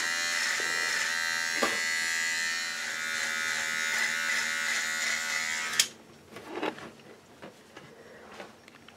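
Electric beard trimmer buzzing steadily as it cuts mustache hair, then switched off with a click about six seconds in; a few faint taps follow.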